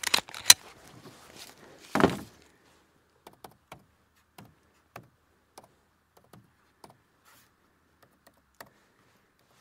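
Handling noise from the shooter's guns and gear between strings. A few sharp clicks and knocks, the loudest about half a second in, then a fuller clatter about two seconds in, then scattered faint light clicks.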